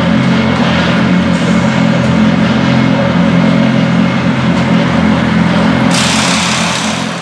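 Ligier JS P3's Nissan VK50 5.0-litre V8 idling steadily at a fixed pitch. A hiss joins about six seconds in and stops a second later.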